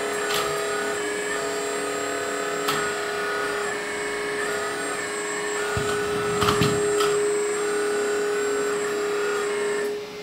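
Hydraulic pump of a 1/14 LESU ET26L RC excavator running with a steady hum while the arm and bucket are worked, its sound shifting as the valves open and close under load. A few sharp clicks come through, and a louder clunk about six and a half seconds in.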